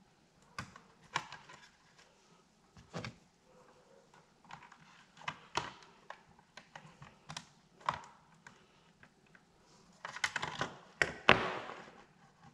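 Plastic housing and wire connectors of a CPAP machine being handled and fitted back together: scattered light clicks and knocks, with a busier, louder run of them a little past ten seconds in.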